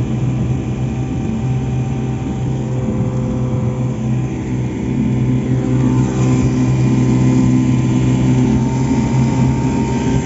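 Boat's outboard motor running steadily with a low hum, getting louder about halfway through as the boat speeds up.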